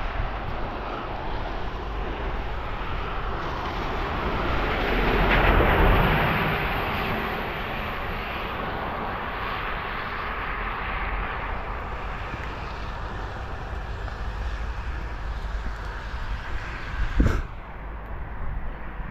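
A vehicle passing by: a broad rushing noise that swells to a peak about six seconds in and then fades, over a steady low rumble. A single sharp knock comes near the end.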